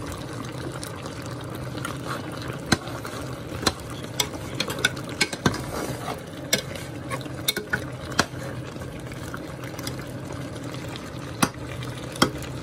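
A metal spoon stirring okra into a pot of pork stew in tomato sauce, clinking irregularly against the pot, over the steady sound of the stew simmering.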